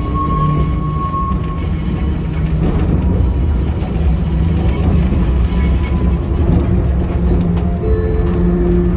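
Enoshima Electric Railway train running slowly on its track, heard from the cab: a steady rumble of wheels and running gear, with a thin high wheel squeal on a curve that fades out in the first couple of seconds.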